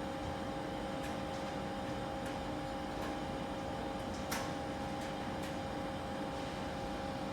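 Railway platform ambience: a steady machine hum with two held tones, broken by a few scattered sharp clicks, the sharpest about four seconds in.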